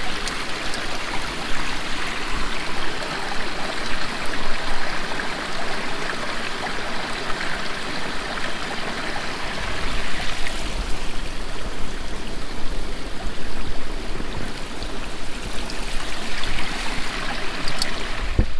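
Stream water flowing, a steady wash that thins a little about ten seconds in.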